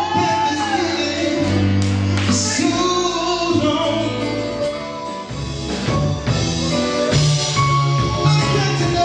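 Live band music with a male lead vocalist singing over keyboards and bass, backed by other singers. The bass notes grow stronger and more rhythmic about halfway through.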